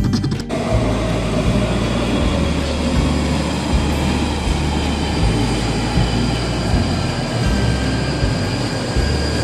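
London Underground Northern line train running into a station platform: a steady rush and rumble of wheels on rail with a faint high whine.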